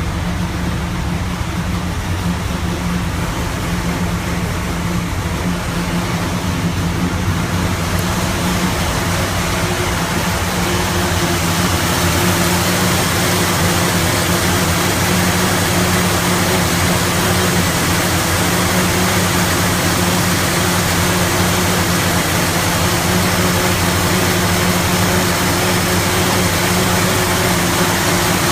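Engine of a '55 vehicle idling very roughly. It grows a little louder and brighter about ten seconds in.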